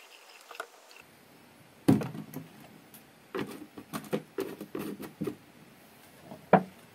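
A series of separate knocks and clunks: a loud one about two seconds in, a quick uneven run of them in the middle, and one last sharp knock near the end.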